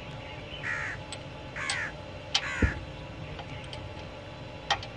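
A crow cawing three times, harsh calls about a second apart, with a few sharp clicks and a dull knock from metal fittings being handled.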